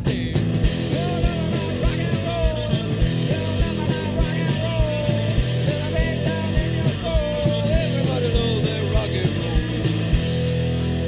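Rock music: a band with drums keeping a steady beat under sustained bass and chords, and a lead line that bends and slides in pitch over the top.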